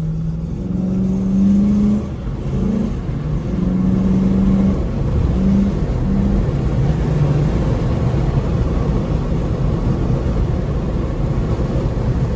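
Chrysler 300 SRT8's Hemi V8 pulling hard under acceleration, heard from inside the cabin: the engine note climbs for the first couple of seconds and holds with brief dips. Later it settles into a steady, loud drone of engine, tyre and wind noise at speed.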